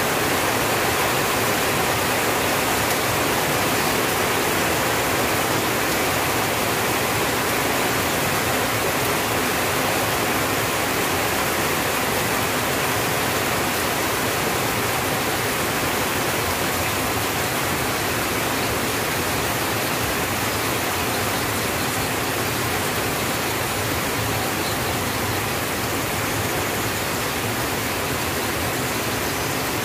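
Rain falling steadily on a tin roof: an even, unbroken hiss of many drops at a constant level.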